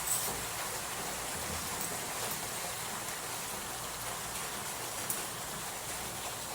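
Food sizzling in a hot pan: a steady hiss with a few faint crackles.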